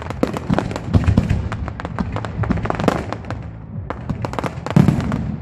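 Fireworks going off in quick succession: dense crackling and popping, with heavier booms about a second in and again near the end.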